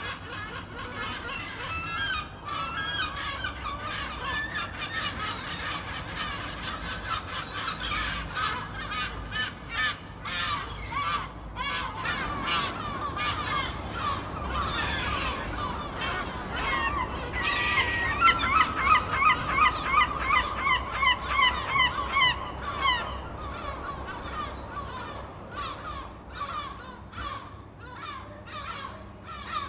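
Gulls squawking: many short, overlapping calls, with a louder run of rapid repeated calls about two-thirds of the way through, over a faint low background rumble.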